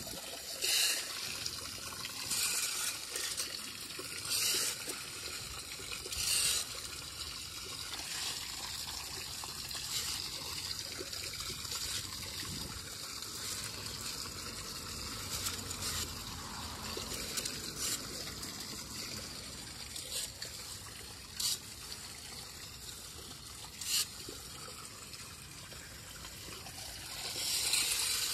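Storm drain with water trickling steadily into it, broken by a few short scrapes of a small hand rake: four in the first seven seconds, a couple more later, and a longer one near the end.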